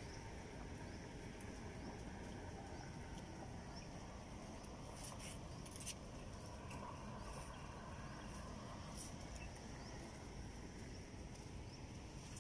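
Faint steady low rumble with many short, faint high chirps scattered through it and a few clicks near the middle.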